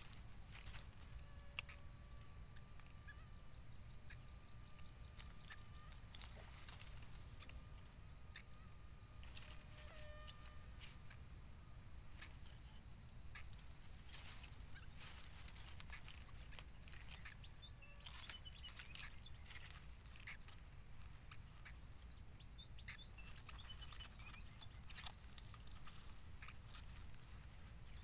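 Reedbed ambience: a steady, thin, high-pitched whine with scattered small clicks and rustles, and from about halfway through, many faint, quick, high chirps.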